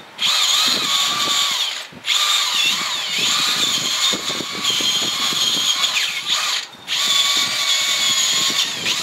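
Small power drill running against the wheel-hub studs to clean their threads, with a high steady motor whine over a scraping rattle. It runs in three stretches, stopping briefly about two seconds in and again near seven seconds.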